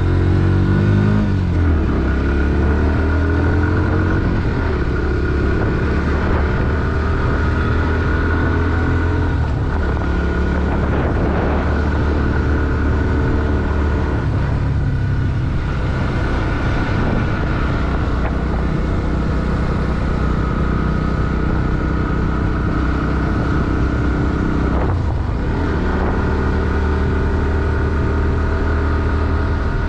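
Bajaj Pulsar NS160 motorcycle's single-cylinder four-stroke engine running under way, pulling at a steady pitch for long stretches. The pitch drops and picks up again several times as the revs change.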